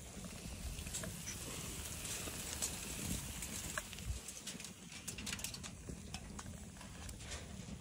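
Chicken sizzling on an outdoor grill, with many short sharp crackles over a steady hiss and a low, uneven rumble.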